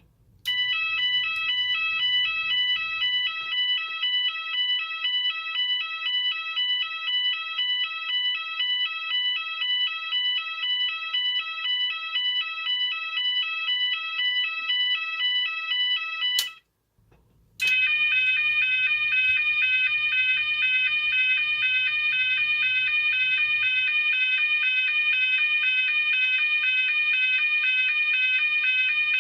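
Cooper MIN-T electronic fire alarm sounder sounding a tone that flips back and forth between two pitches, about two alternations a second. About 16 s in it cuts off with a click, and after a second's silence it starts a different tone that alternates faster.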